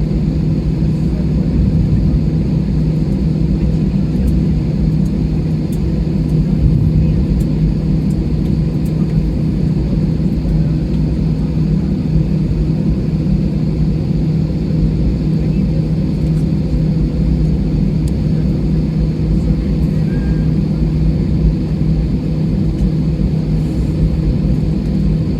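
Steady drone of an airliner's engines at ground idle heard inside the cabin: an even, low hum with a constant tone, unchanging throughout.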